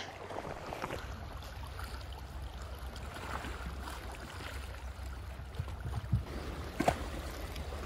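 Outdoor shoreline ambience: a steady low wind rumble on the microphone over sea water washing on the rocks, with a couple of light knocks near the end.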